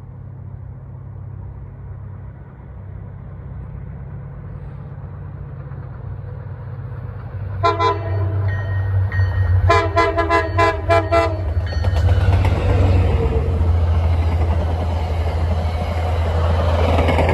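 A train's rumble building as it approaches, with a short horn blast and then a quick run of horn toots, before the train passes close by.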